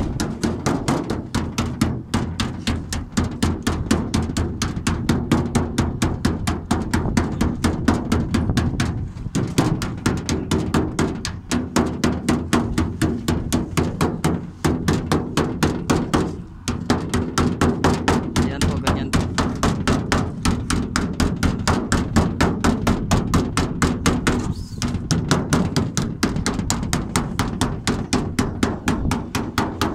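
Steel hammer tapping rapidly on the edge of a thin metal cladding sheet, a fast steady run of light blows, several a second, broken by a few short pauses. Light blows are used because the thin sheet bends easily.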